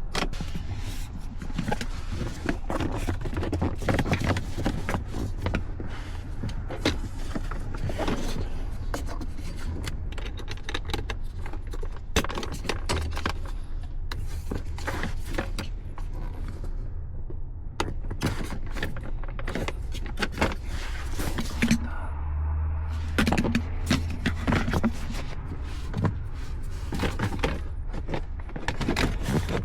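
Irregular clicks, knocks and scrapes of hands handling dash trim pieces and tools while putting the dashboard back together, over a steady low hum.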